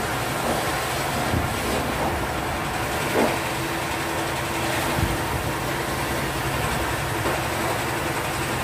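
Aluminium sliding-window frame knocking lightly as it is set against stacked glass panes; one clink about three seconds in rings on briefly. Underneath is a steady low rumble.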